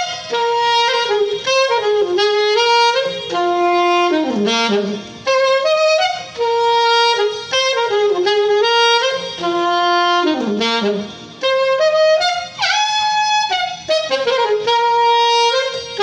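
Saxophone playing a melody line: held notes and stepwise runs, broken into phrases by short pauses about four seconds in and again around eleven seconds.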